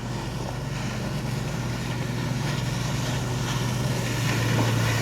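Personal watercraft engine running steadily, slowly growing louder.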